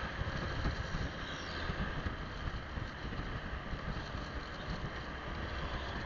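Wind buffeting the microphone of a motor scooter in motion, with the scooter's engine and road noise running underneath.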